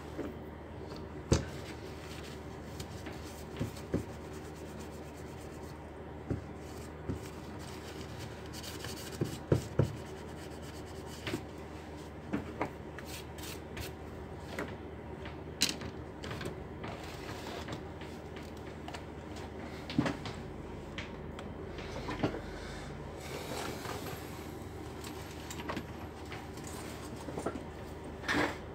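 Scattered light knocks and clicks of small hard objects being handled, coming at uneven intervals over a steady low hum.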